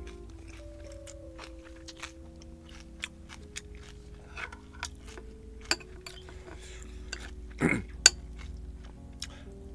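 Soft background music with held notes, over scattered clicks of a spoon and chopsticks against a rice bowl and plastic takeout containers during eating. About three-quarters of the way through there is a loud, short falling-pitch sweep, then a sharp click.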